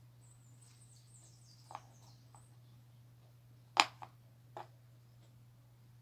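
Light clicks and taps from small craft pieces being handled and set down, with one sharper click about four seconds in, over a steady low hum. A faint high chirping sounds through the first couple of seconds.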